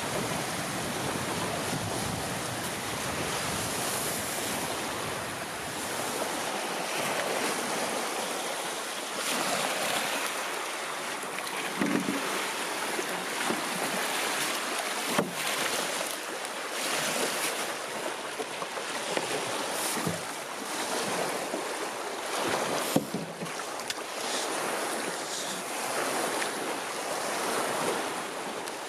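Wind and lake water lapping, a steady rush, with a few brief knocks or splashes now and then.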